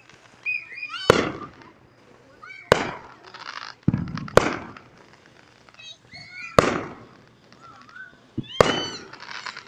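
Neighbourhood fireworks going off: about five sharp, echoing bangs, one every second or two.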